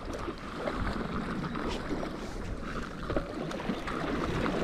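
Hooked trout thrashing and splashing at the water surface while being played on a light spinning rod, an uneven, continuous splashing with scattered small slaps, with some wind on the microphone.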